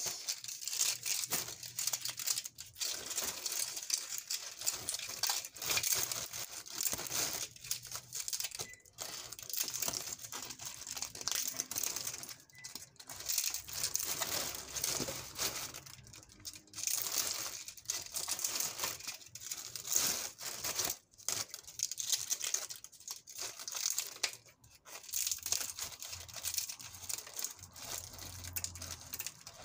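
Scissors snipping dry, crunchy sun-dried banana peels into small pieces, with a plastic bag crinkling underneath: an irregular run of short dry cuts and rustles with brief pauses.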